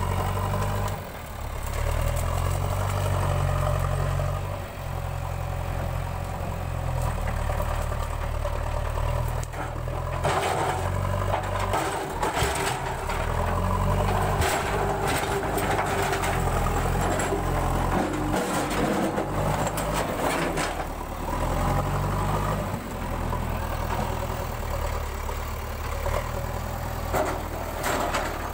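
Diesel engine of a JCB 3DX backhoe loader running, its revs rising and falling several times as the front loader bucket works. Clattering knocks from the bucket and stones come through the middle and again near the end.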